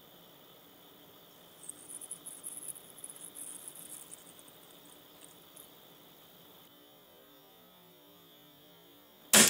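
2014 EpiPen epinephrine autoinjector being pressed slowly onto an orange: a faint, high-pitched crackling for a few seconds, then the autoinjector firing with one sharp, loud click near the end.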